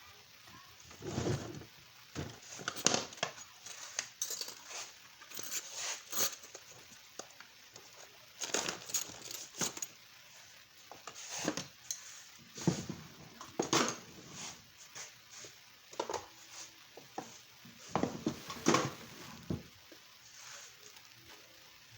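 Irregular clattering and knocking of hard objects, with a few heavier thumps about a second in, around the middle, and near the end.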